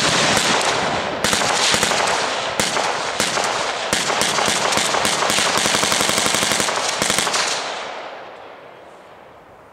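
Machine guns firing full-auto in a dense, continuous stream of shots that stops about seven and a half seconds in, then trails off over about two seconds.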